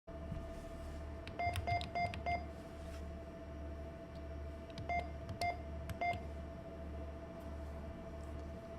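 ATM keypad beeping as buttons are pressed: four quick beeps, then a pause, then three more, each a short steady tone. A steady low electrical hum from the machine runs underneath.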